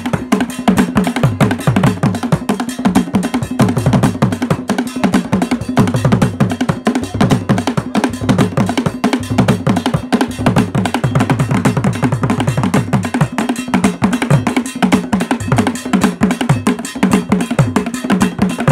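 Traditional Ghanaian drum ensemble: tall carved barrel drums beaten with curved wooden sticks in a fast, interlocking rhythm. Low drum tones ring under dense, sharp stick strokes without a break.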